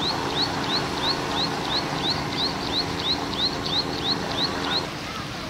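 Steady hum of a boat engine under a rapid, regular series of short, high, rising chirps, about three to four a second; both fade near the end.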